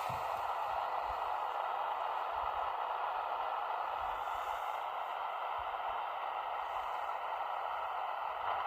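Steady shortwave receiver hiss from a Panasonic RF-B45 portable radio tuned in upper sideband. The noise is band-limited to the radio's audio passband, with no clear Morse tone standing out above it.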